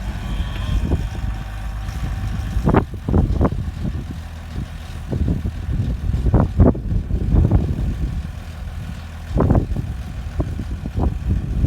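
Excavator's diesel engine running, with several short louder surges over the steady rumble as the machine works.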